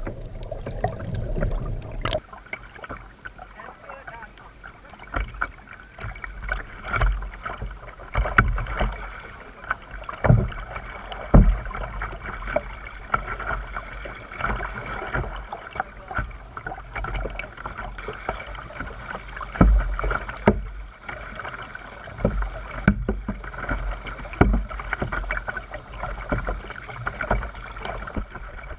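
Kayak paddle strokes: irregular splashes of the blades in the water and low knocks, over a steady chorus of cicadas.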